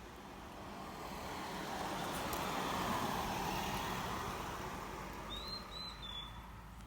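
A vehicle passing by, its noise swelling to a peak partway through and then fading away. Near the end a bird gives three short, quick chirps.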